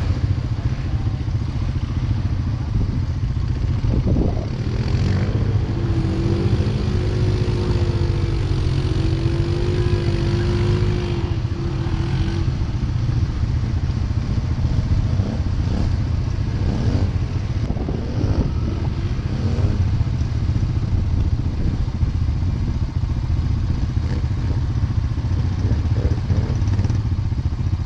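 ATV engine running steadily as the quad is ridden, a loud continuous low drone. For several seconds, about a third of the way in, a higher wavering engine note rides over it.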